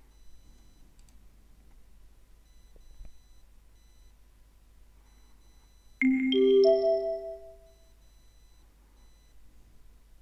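Three-note rising chime, the signal tone of a recorded listening exam marking the next item: the notes sound in quick succession about six seconds in and ring out over roughly two seconds. A faint click comes about three seconds in.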